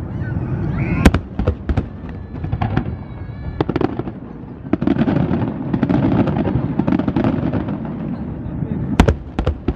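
Aerial firework shells bursting in a display: a continuous rumble and crackle broken by repeated sharp bangs, the loudest about a second in and again near the end.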